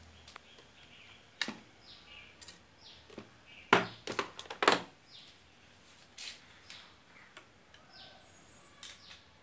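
Scattered sharp clicks and knocks, the loudest cluster about four seconds in, with short high bird chirps in the background.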